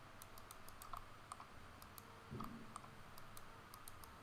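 Faint, irregular light clicks of computer mouse and keyboard use, a few a second, over low room hiss.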